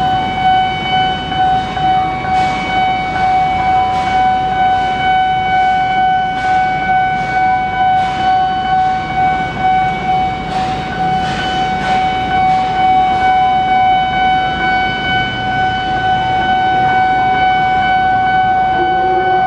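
Railway level-crossing warning alarm sounding: a loud, steady electronic tone that starts abruptly and pulses about twice a second, with traffic noise underneath.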